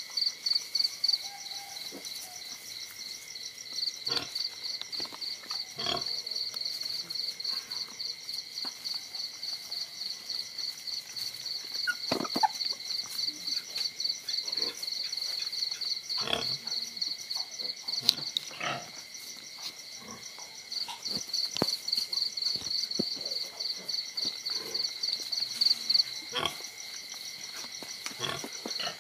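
Dogs play-fighting, with short growls, yelps and scuffles every few seconds, the sharpest about 12 seconds in and near 18 and 26 seconds. Under them, night insects keep up a steady, fast pulsing high chirp.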